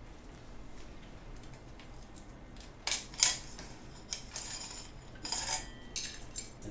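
Bicycle chain clinking and rattling in short irregular bursts as it is handled and slipped off the chainring, starting about three seconds in.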